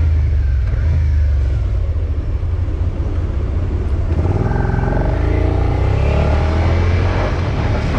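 Suzuki motorcycle engine running under the rider with a steady low rumble; from about halfway its pitch climbs as the bike accelerates.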